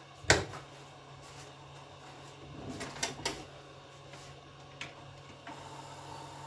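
Sony VCD player's three-disc carousel changer powering up: a sharp click about a third of a second in, then softer mechanical clicks and a whir as the carousel tray turns to a new disc position, over a steady low hum.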